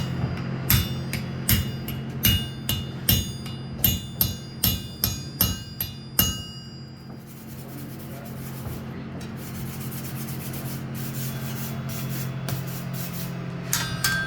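Blacksmith's hammer striking steel on an anvil, about a dozen ringing metallic blows at roughly two a second, as a round hole is punched. The blows stop about six seconds in, leaving a steady low hum, and one more clink comes near the end.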